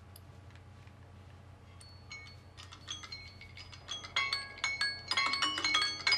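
Samsung Galaxy phone's Clock app alert tone starting: a quick melody of short bell-like notes that comes in about two seconds in and grows steadily louder. A few faint clicks are heard before it.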